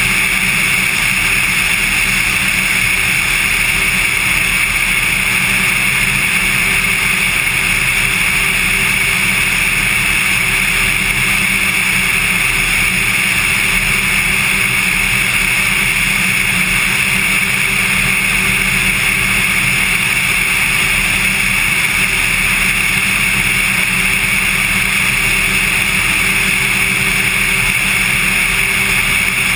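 Cessna 182 light aircraft's piston engine and propeller in flight, a loud, unchanging drone.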